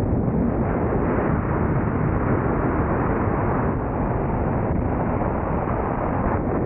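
Sea-Doo jet ski running at speed across the water: a steady, unbroken rush of engine, jet pump and spray, heavily mixed with wind noise on the microphone.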